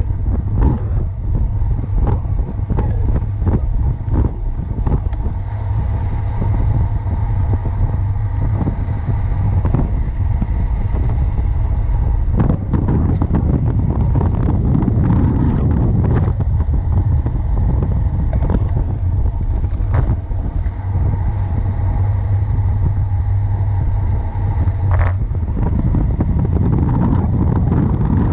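Wind buffeting the microphone of a bike-mounted camera on a fast road-bike descent, with steady road and tyre rumble. Frequent sharp knocks come through as the bike runs over bumps.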